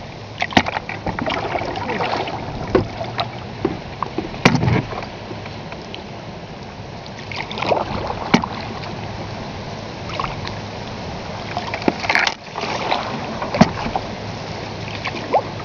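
Open canoe being paddled on a fast-flowing river: paddle strokes and water washing along the hull, with occasional sharp knocks.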